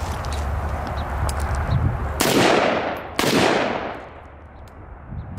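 Two shots from a 5.56 AR pistol with a 10.5-inch barrel (Springfield Saint Victor), about two seconds in and a second apart. Each crack rings out in a long, fading echo.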